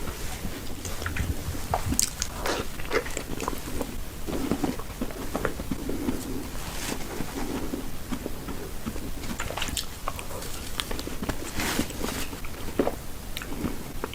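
A person eating close to the microphone: bites and chewing, with many short crunchy clicks scattered throughout.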